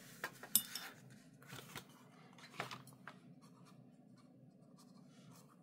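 Paintbrush moving wet watercolour paint across watercolour paper: a few short, soft scratchy strokes in the first three seconds, then quiet.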